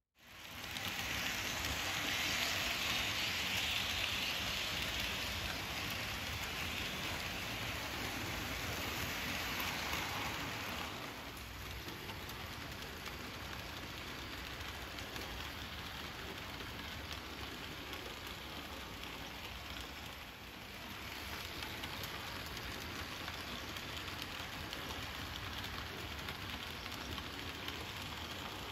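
Märklin BR 64 H0 model steam locomotive's sound decoder playing steady steam hiss from the model's small speaker as the model runs, mixed with its wheels on the track. The hiss is loudest for the first ten seconds, drops about eleven seconds in, and dips briefly near twenty seconds.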